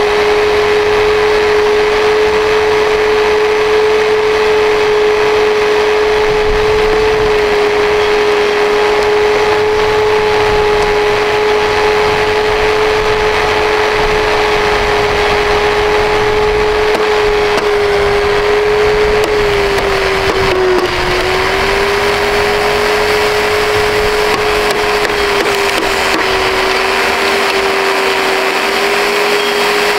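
Dirt Devil Ultra MVP vacuum cleaner's motor running continuously with a loud, steady whine. The pitch sags briefly about two-thirds of the way through and again near the end.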